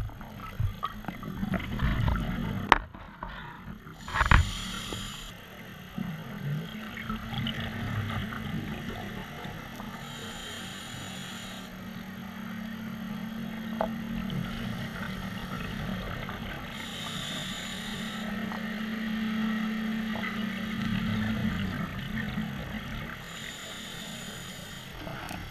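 A diver breathing through a scuba regulator underwater: four short hisses of inhalation about six and a half seconds apart, each followed by a long low rumble of exhaled bubbles. A few sharp knocks in the first few seconds.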